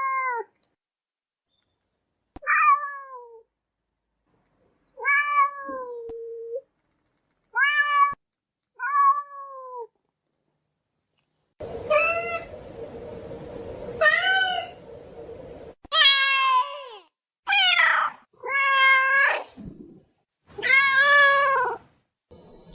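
Domestic cat meowing, about ten separate meows with short pauses between them. The later meows are louder over a faint hiss.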